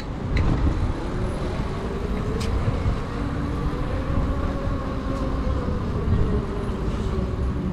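Steady road rumble and wind noise while riding along a city street, with a motor whine that rises in pitch and then falls back over a few seconds, and a few light clicks.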